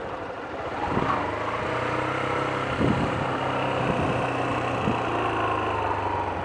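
Yamaha YBR 125's single-cylinder four-stroke engine running at low revs as the motorcycle rolls slowly, its note settling into a steady low hum about a second in.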